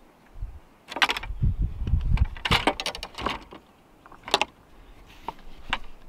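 Long crappie rods and their reels rattling and clattering as they are handled and gathered up off a boat deck: a series of sharp rattles with a few dull thumps.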